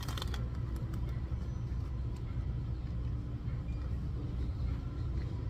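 Steady low rumble of supermarket background noise, with a few faint rustles and ticks.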